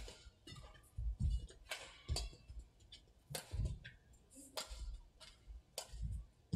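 Badminton rally: sharp cracks of rackets striking the shuttlecock, about one a second, with the thuds of players' footwork on the court between them.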